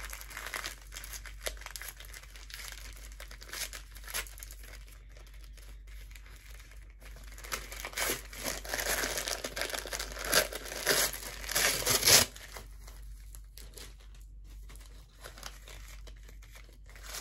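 Paper wrapping being torn and crumpled by hand as a long package is unwrapped, in irregular rustles with a louder run of rips from about eight to twelve seconds in.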